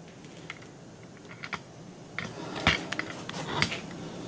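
Irregular light clicks and taps of hands handling tape and wiring, sparse at first and busier in the second half, with one louder knock about two and a half seconds in.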